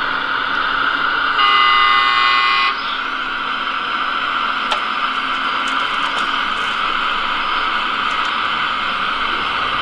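Radio-controlled Liebherr 946 hydraulic excavator at work, with a steady mechanical whir from its hydraulics. A horn sounds once, for just over a second, about a second and a half in. A single sharp click comes about five seconds in.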